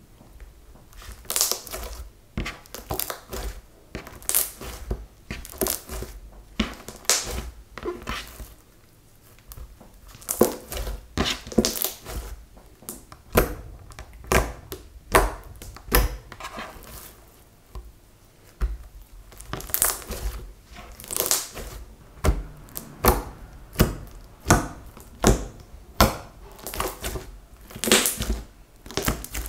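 Thick silver slime being kneaded, stretched and squeezed by hand, making irregular sticky squelches and sharp pops, several a second at times, with a couple of brief quieter pauses.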